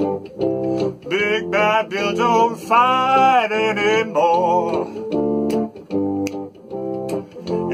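Music: strummed acoustic guitar chords in a steady rhythm, with a wavering lead melody over them for a few seconds in the middle.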